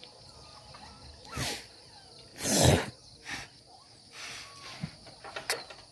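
Hunting dogs sniffing hard into a rubble pile after a rat: several short blasts of breath, the loudest about two and a half seconds in, with a few small clicks of shifted stones near the end. Insects trill steadily underneath.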